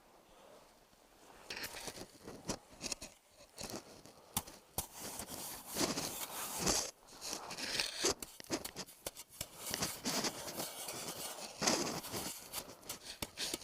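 Snow being dug out: a run of irregular crunching and scraping strokes that begins about a second and a half in.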